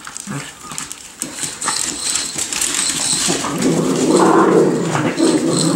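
Miniature schnauzers at play: scuffling and clicks for the first few seconds, then, from about halfway, a long, loud play growl.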